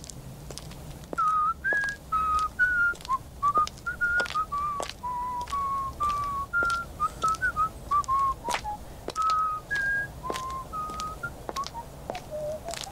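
A man whistling a tune of short notes, starting about a second in, with the last notes sliding down near the end. Under it, footsteps walk along at about two steps a second.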